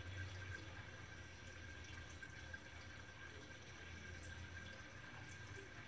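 Faint trickling water over a steady low hum from a running aquarium's filter.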